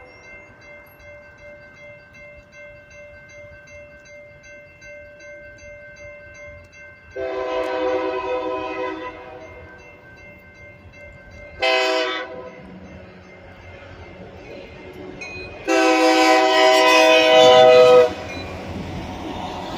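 Grade-crossing bells ringing steadily at the lowered gates while a Union Pacific EMD SD70M diesel locomotive's chime horn sounds the crossing signal: a long blast, a short one, then a long one. Near the end the locomotive reaches the crossing with engine rumble and wheel noise.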